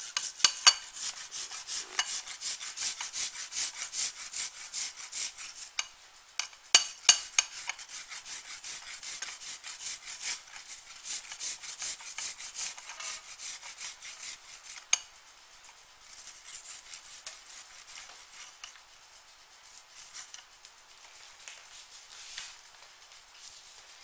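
A garlic clove rubbed quickly back and forth on a metal rasp zester, a steady scratchy grating with a few sharp clicks. The grating turns fainter about two-thirds of the way through.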